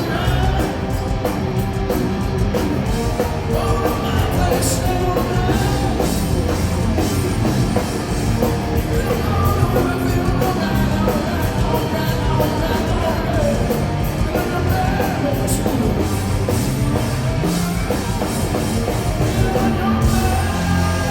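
Live hard rock band playing loud, with electric guitars, bass and drums and a singer's voice over them.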